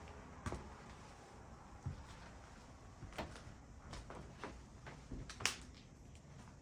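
Quiet, empty-room background with a few faint knocks and taps scattered through it, the loudest a sharp click about five and a half seconds in.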